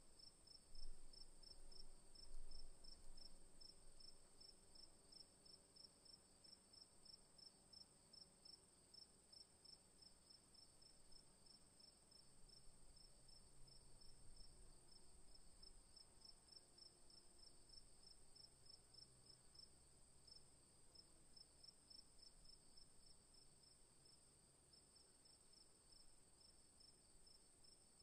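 Faint cricket chirping in a steady, even rhythm, over a continuous high-pitched whine. A couple of soft low bumps come in the first few seconds.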